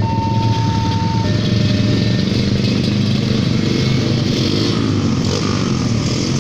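Level-crossing warning signal sounding a steady high electronic tone that stops about a second in, once the train has passed. Many motorcycle engines idle and then pull away across the tracks, growing louder toward the end.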